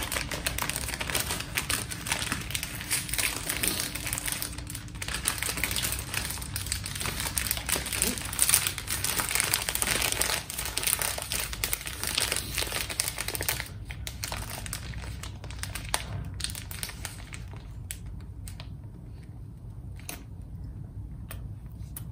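Plastic and paper bakery wrapping crinkling as a bun is handled and unwrapped. The crackling is dense for most of the first half, then thins to scattered rustles for the rest.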